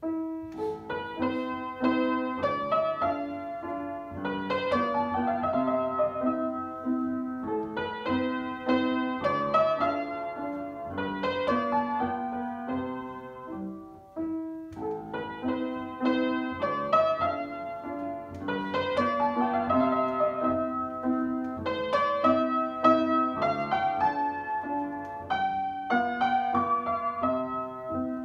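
Upright piano played solo: a melody over a steady, repeating accompaniment figure, the phrase starting over about every seven seconds.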